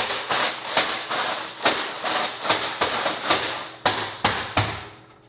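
A run of sharp crackling taps, about two or three a second, from kitchen handling; they die away near the end.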